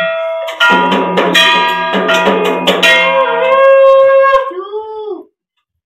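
Conch shells (shankha) blown in a long steady horn tone, with a second, lower conch note joining about half a second in. The notes waver and sag in pitch as they die away near the end.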